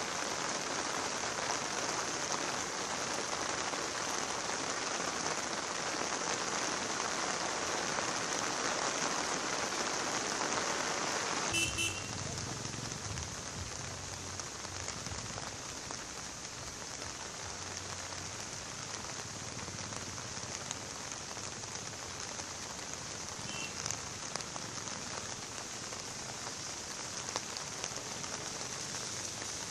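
Steady rain falling on a road and the surrounding hillside. After a cut about twelve seconds in, the rain is a little quieter and the low hum of vehicles driving on the wet road joins it.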